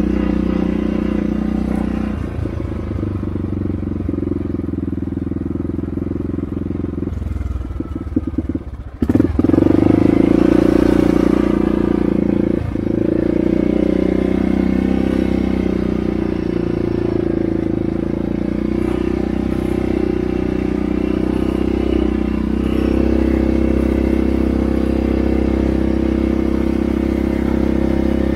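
ATV (four-wheeler) engine running steadily while riding. About eight seconds in there is a brief clattery dip, then it suddenly runs louder.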